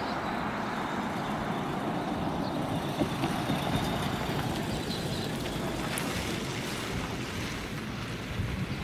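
Steady outdoor rushing noise, like wind or road traffic, with a few faint high chirps. The crossing bell is silent.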